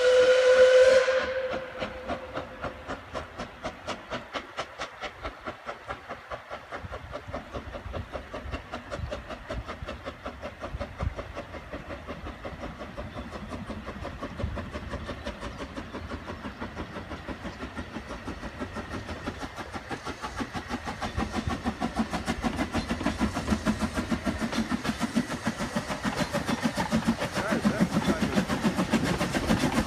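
Narrow-gauge steam locomotive gives one short whistle, then works away with its train, its exhaust chuffing in even beats that quicken and grow louder as it draws near.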